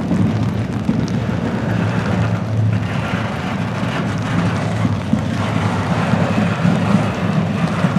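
Double-stack container well cars of a freight train rolling past close by: a steady, loud noise of steel wheels running on the rails.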